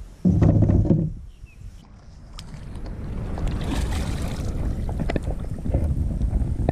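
Kayak on the water: a loud low bump of about a second near the start, then a steady low rumble of water and wind on the microphone that builds over the next few seconds.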